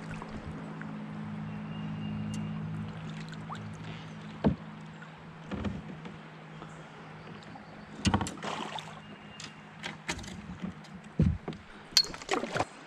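Scattered knocks and clunks of a paddle and fishing gear against a plastic fishing kayak's hull, the last few close together as the kayak is paddled off, over a low steady hum that fades away.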